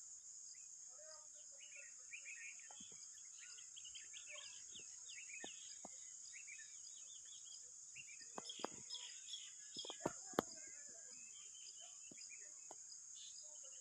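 Crane chicks peeping in many short, high chirps over a steady high insect drone. A few sharp clicks or taps come between about eight and ten and a half seconds in.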